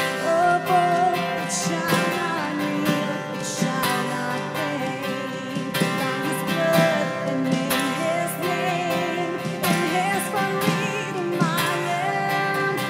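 Acoustic guitar strummed steadily under a woman singing a slow worship melody.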